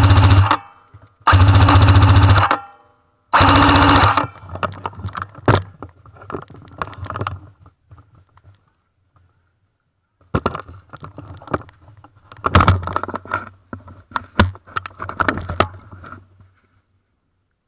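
Airsoft M60 electric gun firing three full-auto bursts of about a second each, the gearbox buzzing with rapid cycling. After the bursts come scattered clicks, knocks and rattles.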